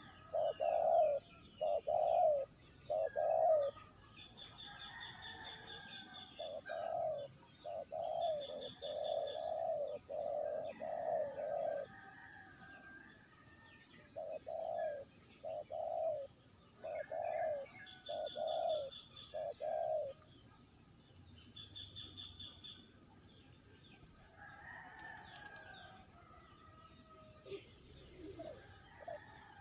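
A coucal giving its deep hooting call: runs of five or six low, evenly spaced hoots, about two a second, repeated three times and ending about two-thirds of the way through. A steady high insect drone runs underneath, with a few faint higher chirps.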